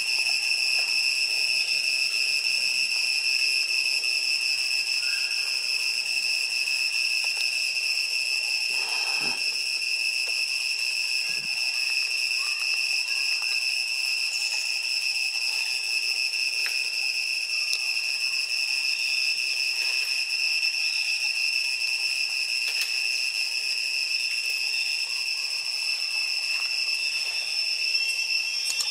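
Steady high-pitched drone of insects in the trees: one even, unbroken whine with overtones that never changes.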